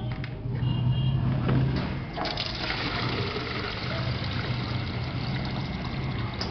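Water pouring from a semi-automatic paint filling machine's nozzle into a plastic pail: a steady rushing splash that gets stronger about two seconds in.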